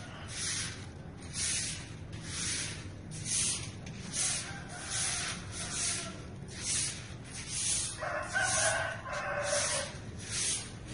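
Soft grass broom sweeping fallen volcanic ash, a swish about once a second. About eight seconds in, a rooster crows once.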